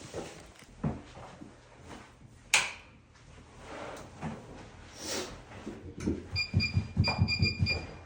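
Handling sounds with one sharp click about two and a half seconds in, then near the end a quick run of about eight short electronic beeps.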